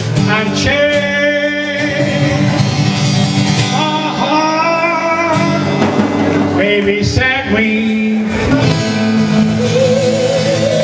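A live band playing, with a man singing into a microphone over guitar and drums.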